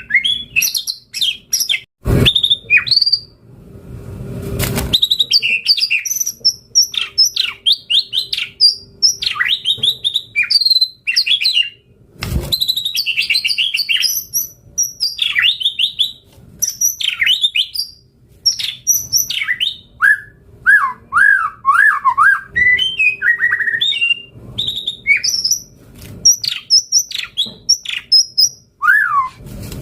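White-rumped shama singing continuously: a rapid, ever-changing string of whistles, chirps and trills. A few sharp knocks and a brief rush of noise cut in early on and again about twelve seconds in.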